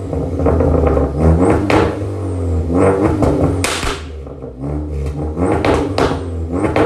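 Turbocharged Ford Focus ST engine with a catless downpipe and custom dual-resonated exhaust, revved up and let fall several times. Sharp crackles and pops come from the exhaust as the revs drop.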